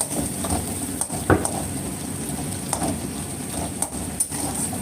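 Ginger and beetroot being stir-fried in oil: a spatula scraping and clinking against the pan, with one louder knock about a second and a half in.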